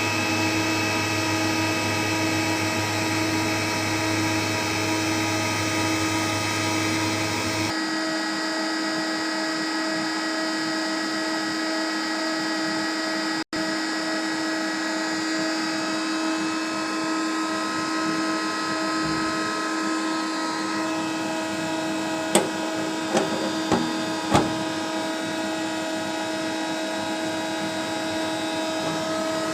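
CNC machine running with a steady hum and whine. Its low hum drops out about a third of the way in, and a few sharp clicks come near the end.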